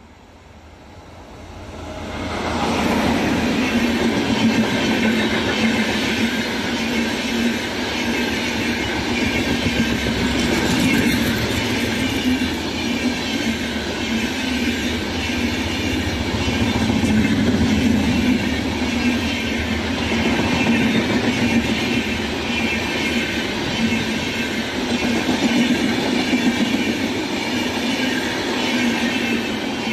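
A long train passing close by at speed. The rumble and clatter of its wheels on the rails build up about two seconds in and hold loud and steady as the cars go past, starting to fade at the very end.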